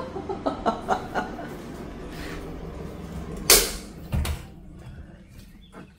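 A door being worked: a few clicks, a brief loud swish, then a dull thud as it swings shut.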